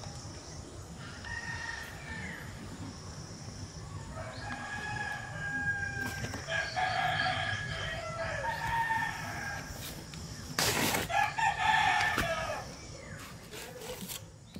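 Rooster crowing several times, long drawn-out calls one after another, with a short loud rustle about eleven seconds in.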